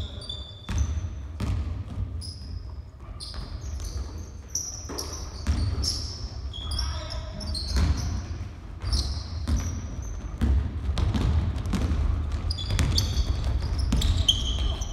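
Basketball bouncing repeatedly on a hardwood gym floor during play, with sneakers squeaking in short high chirps and players calling out, echoing in a large hall.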